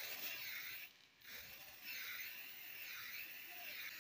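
Aerosol spray-paint can hissing as paint is sprayed onto a sewing machine body, in two sprays with a short break about a second in.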